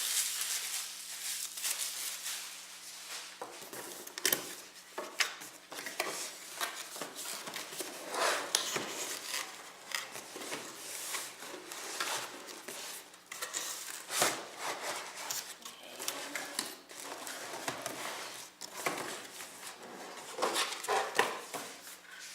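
An AIO liquid cooler and its packaging being handled and unboxed: irregular rustling and crinkling with many small clicks and knocks of parts being picked up and set down.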